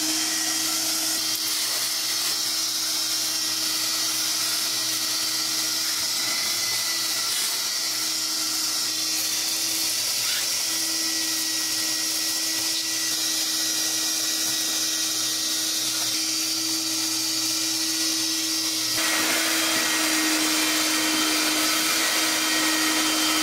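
Shop-Vac wet/dry vacuum running steadily with a constant motor whine and air rush, its hose sucking rust debris off the top of a carburetor and intake manifold. The tone of the airflow changes noticeably near the end as the nozzle moves.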